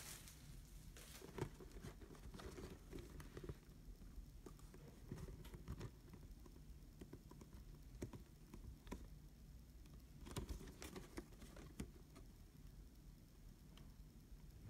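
Faint handling noise from a plastic model kit's cardboard box and paper instruction booklet: scattered light taps and soft paper rustles, with a few louder ticks about a second and a half in, around eight seconds and around ten and a half seconds.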